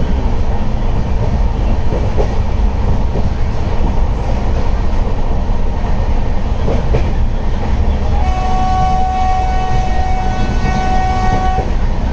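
Steady low rumble of a moving passenger train heard from inside a closed AC coach, with an occasional knock from the track. About eight seconds in, a train horn sounds on one steady pitch for some three seconds, with a brief break near the end.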